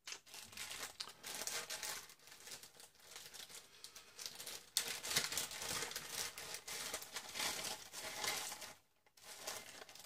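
Thin plastic zip-lock bag crinkling and rustling as a bundle of jumper wires is pulled out of it, with a few sharp clicks. The crinkling dies down about a second before the end.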